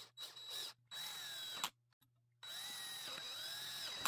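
Cordless drill driver spinning screws into an aluminium extruder barrel housing, in three short runs with silences between them; the last run is the longest. The motor whine rises and dips in pitch as the drill speeds up and slows.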